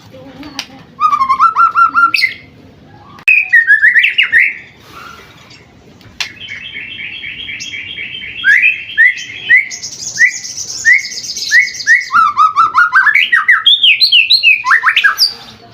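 White-rumped shama (murai batu), a seven-month-old pastol bird, singing loudly in a varied song: quick runs of repeated notes, whistled slurs and rapid trills, with a high buzzy trill about two-thirds of the way through.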